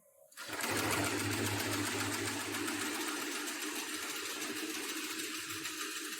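Heavy-duty industrial sewing machine running at a steady speed, a continuous fast mechanical rattle over a low motor hum, starting suddenly about half a second in.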